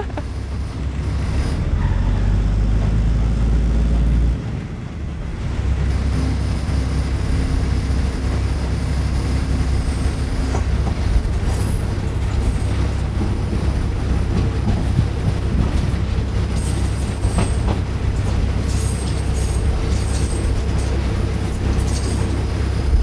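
A diesel railcar running along the track, heard from inside the car: a steady low rumble of engine and wheels on rail, easing briefly about four seconds in. A few faint high wheel squeals come in the second half.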